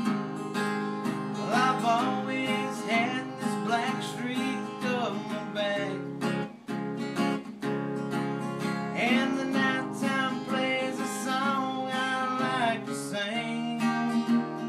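Acoustic guitar strummed in a steady rhythm, with a man singing over it in two long stretches.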